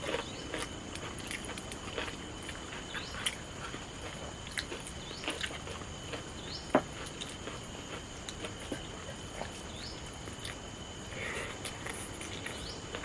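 A person eating a meal by hand: scattered soft clicks and taps of fingers and plate, with one sharper knock a little past the middle. Behind it a steady high thin whine and short rising chirps every few seconds.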